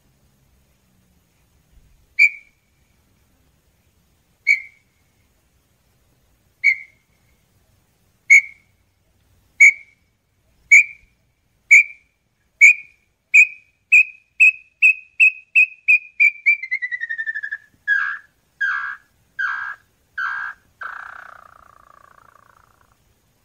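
Small-billed tinamou (inhambu-chororó) singing: single clear whistled notes, spaced about two seconds apart at first, then coming faster and faster from about halfway through, sliding down in pitch into a rapid run, and ending with a few louder, rougher notes and a short trill that fades away.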